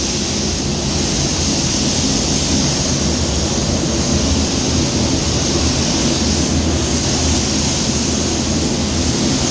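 Paint spray gun hissing steadily as it lays on a heavy coat of waterborne basecoat, over a steady low hum.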